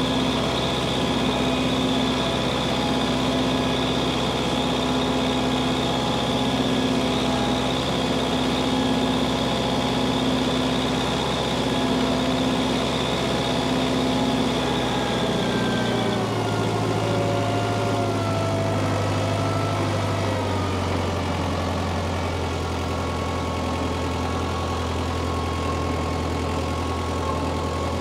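Tractor engine running steadily. Its note drops a little about sixteen seconds in and then holds.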